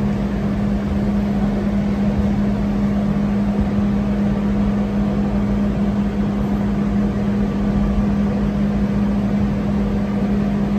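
Funicular car of the Niagara Falls Incline Railway running along its track, heard from inside the cabin: a steady low rumble with a constant hum that holds one pitch throughout.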